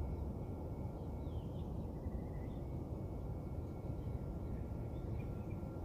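Steady low outdoor rumble with a few faint bird chirps over it.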